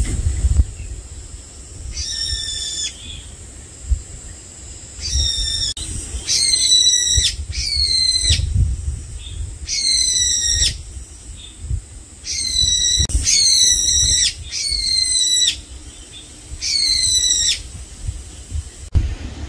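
A bird calling repeatedly: about nine short, clear whistled notes, each sliding slightly downward, coming singly and in quick pairs with pauses between.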